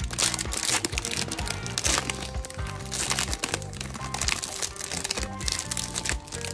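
Plastic film wrapper of a Peeps marshmallow chicks package crinkling as it is peeled open and handled, over background music with a steady bass line.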